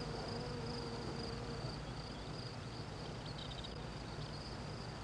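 Faint, steady insect chirring, a continuous high buzz, over a low background hum.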